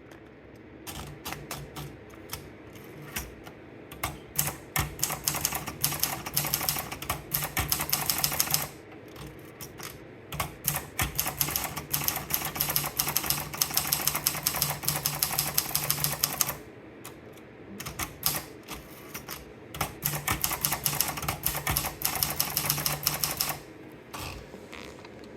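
Topstar typewriter being typed on: three fast runs of key strikes, each a few seconds long, with short pauses between them.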